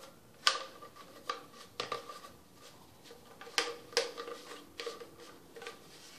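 Plastic PVC sink trap pieces clacking and knocking together as they are handled and fitted by hand: a run of sharp, uneven clicks, each with a short ring. The loudest comes about half a second in, with two more close together near the four-second mark.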